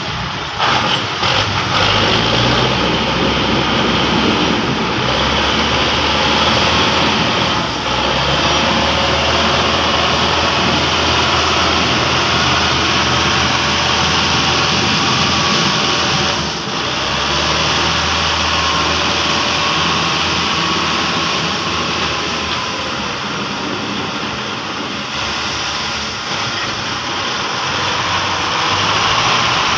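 Diesel engine of a Rusi (Belarus) tractor running hard under heavy load while it drags a trailer stacked with steel bars. A loud, steady drone that dips briefly a little past halfway.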